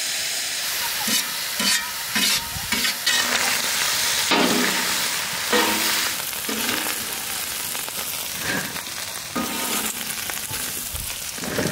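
Diced chicken breast sizzling in oil on a large steel griddle over a wood fire. A metal ladle repeatedly scrapes and clanks across the pan as the meat is stirred.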